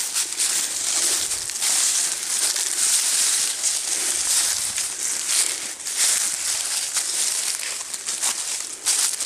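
Continuous crunching and rustling of dry leaves and brush, made by someone pushing on foot through dense undergrowth, with many small crackles close together.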